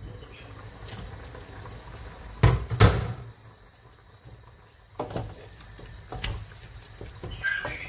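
Two sharp knocks of cookware close together, about two and a half seconds in, then lighter scattered taps of a wooden spoon against a pot as meat and cow skin are stirred.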